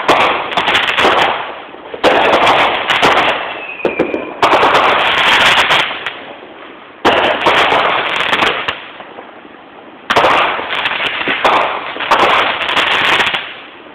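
Aerial fireworks shells bursting overhead, about five loud booms a couple of seconds apart, each followed by crackling that fades away.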